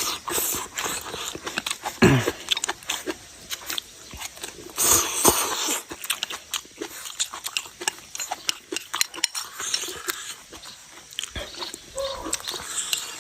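A person eating up close: chewing and biting food with wet smacking sounds and many small clicks. There is a short falling sound about two seconds in.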